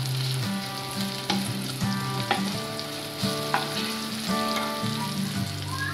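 Chicken strips, bell peppers, carrot and onion sizzling in oil in a nonstick wok as a wooden spatula stirs and scrapes them, with a few light spatula clicks against the pan. Soft background music with sustained notes plays underneath.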